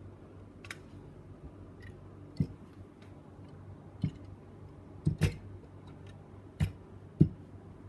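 Light clicks and knocks from hands handling a 1:200 scale model airliner: its parts tap together and it is set down on a carpeted floor. There are about six sharp knocks, two close together about five seconds in.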